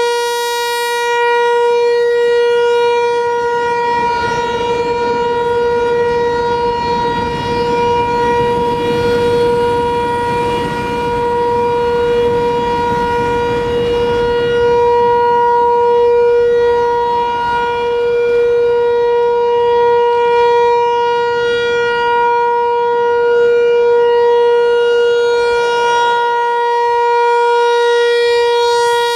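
American Signal T-128 rotating outdoor warning siren sounding a steady tone at full pitch during its monthly test, its loudness swelling and fading as the rotating head sweeps around. A low rumble runs beneath it for several seconds in the middle.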